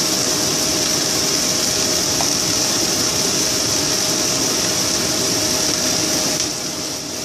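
Kitchen exhaust fan running with a steady whir and faint hum, over the sizzle of cauliflower frying in oil in the pan. The sound dips slightly in level near the end.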